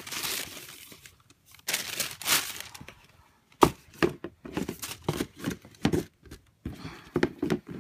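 Tissue paper rustling and crinkling inside a cardboard shoebox. About three and a half seconds in there is a sharp knock, then a run of short taps and scrapes as a hand handles the shoebox and its lid.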